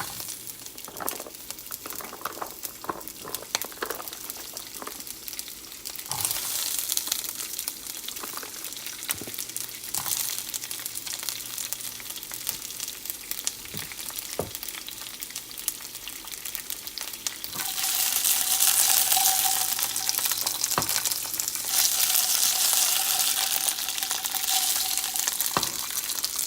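Olive oil crackling in a hot skillet with a few light knocks. About two-thirds of the way through it turns into a much louder sizzle as green beans fry in the oil.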